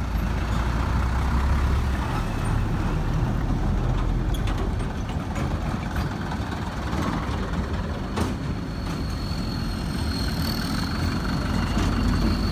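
Diesel engines of heavy trucks, a Hino 500 and a Mitsubishi Fuso Canter, running steadily as they pass close by one after another. There is a short sharp click about eight seconds in.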